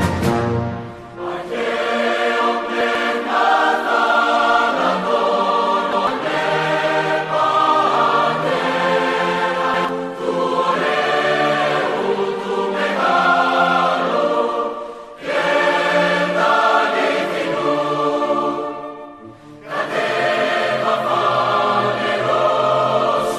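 Choral music: a choir singing long held notes in slow phrases, with short dips between phrases.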